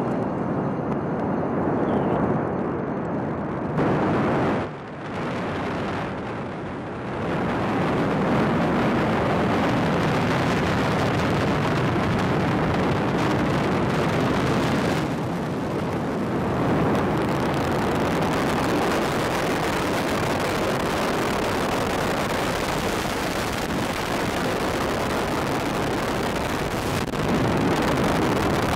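Falcon 9 first stage climbing on its nine Merlin 1D engines: a loud, steady, dense rocket-exhaust rumble, with a brief drop in level about five seconds in.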